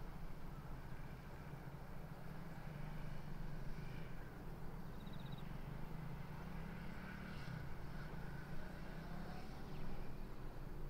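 KiHa 40 diesel railcar's engine running with a steady low drone.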